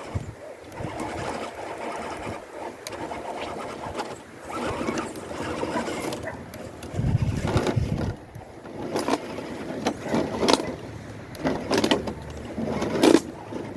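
A 1/10 scale RC rock crawler driving over rough, stony ground: its tyres crunching and scraping on rocks and gravel, with irregular knocks and clicks as it climbs.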